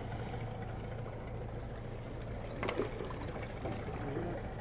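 Steady low motor hum with water lapping at the rocks at the sea's edge; a brief faint knock or voice about two and a half seconds in.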